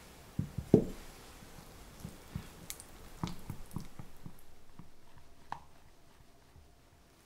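A few soft thuds in the first second as cubes of butter go into warm lemon curd in a glass bowl. Then a silicone spatula stirs the thick curd, with soft squishing and light taps against the glass, growing quieter toward the end.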